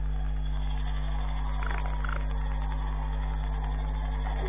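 Steady low electrical hum with faint hiss, the background noise of a CCTV camera's built-in microphone, with a few faint short high sounds about two seconds in.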